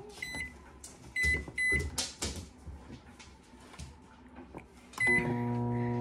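Microwave oven keypad beeping as a two-minute time is entered: three short beeps in the first two seconds, a knock about two seconds in, and a last beep about five seconds in, after which the oven starts running with a steady hum.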